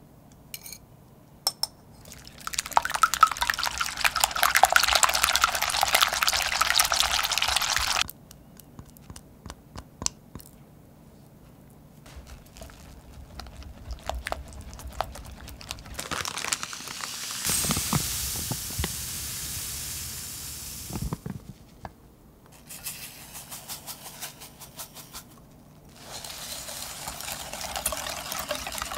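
Wire whisk beating egg whites in a glass bowl, in spells of fast whisking with pauses of scattered light clicks between. A steady hiss runs for a few seconds about two-thirds of the way through.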